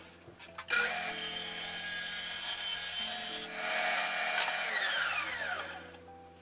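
Power saw cutting plywood, then the blade winding down after switch-off, heard as a falling whine near the end.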